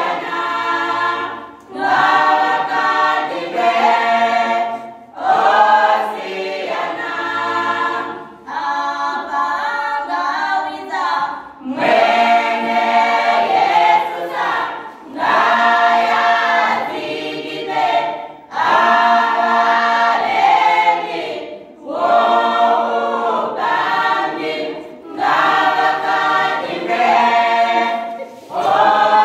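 A choir of young voices singing a cappella, in phrases of about three seconds with a short break for breath between each.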